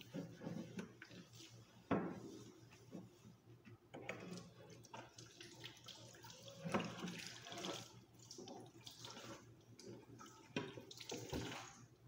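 Dishes being washed by hand at a kitchen sink: tap water running on and off in stretches, with a few knocks of dishes against the sink.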